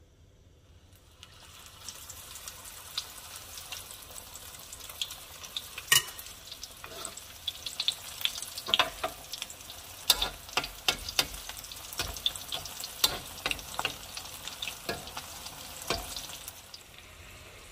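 Shrimp egg foo young batter going into hot oil in a wok. It starts sizzling about a second in, then fries with a steady hiss and frequent sharp crackles, easing off near the end.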